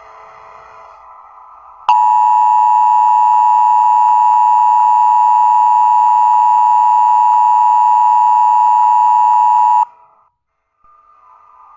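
Emergency Alert System attention signal: a loud, steady two-pitch alarm tone lasting about eight seconds. It starts suddenly and is preceded by a shorter, quieter buzzy tone. It is the alert that announces a broadcast tornado warning.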